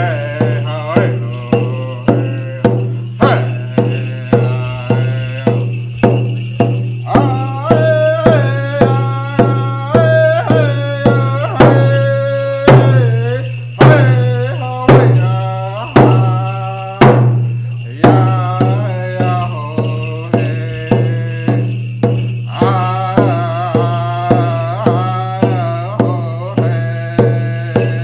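Man singing a Native American song while beating a hand drum, about two strokes a second. Midway the drumming changes to louder single strokes about a second apart, then returns to the quicker beat.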